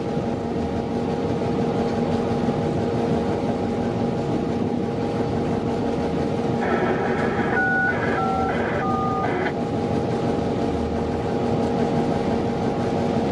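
Steady drone of a diesel locomotive's engine pulling a moving train, with rumbling wheel and rail noise, heard from aboard. About halfway through, a short series of stepped, falling tones sounds over it.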